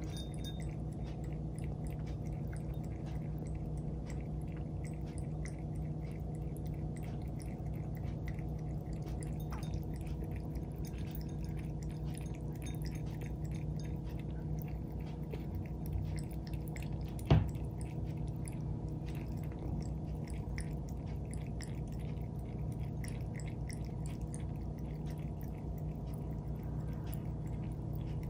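Cat lapping water from a ceramic bowl: a continuous run of soft wet laps over a steady low hum. One sharp click comes about two-thirds of the way through.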